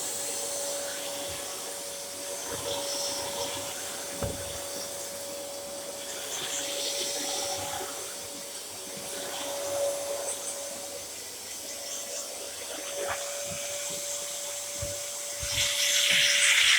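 Dyson DC07 bagless upright vacuum cleaner running: a steady motor whine with a hiss of air that rises and falls, loudest near the end.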